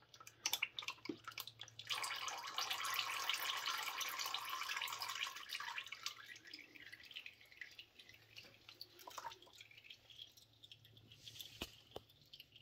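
Hydraulic oil pouring and splashing out of the loosened hydraulic filter of a Case IH CS86 tractor. The oil starts a couple of seconds in and runs for about four seconds. It then tapers off into scattered drips and small clicks.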